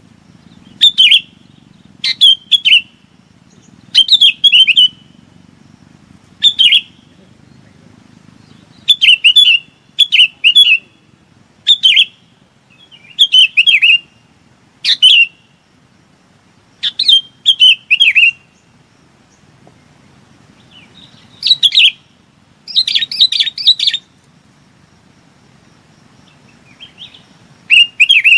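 Bulbul giving its flock call: short, bubbly phrases of chirps, repeated every second or two with brief pauses, and a longer run of calls a little past the middle. This is the call used as a lure to draw bulbuls to a trap.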